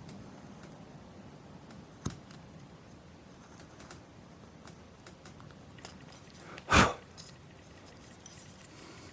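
Hand-carving wood with a small carving tool: faint scraping cuts and small ticks, with a sharp click about two seconds in. Near the end comes a single louder short clunk, the loudest sound here.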